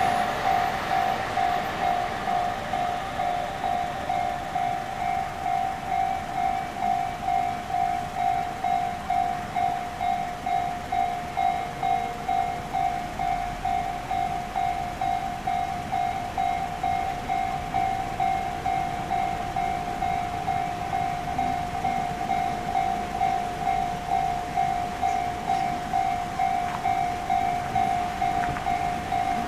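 Japanese level-crossing warning bells ringing over and over in an even pulse, the JR standard bell together with the Tobu Tojo-type bell, because the crossing stays closed. A passing train's noise fades out in the first couple of seconds.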